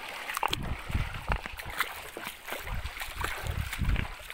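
River water running and splashing, with irregular low thumps and scattered clicks.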